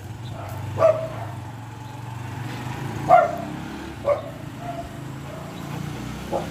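Dog on a chain leash giving four short, high yips a second or two apart as it pulls ahead on a walk, over a steady low hum.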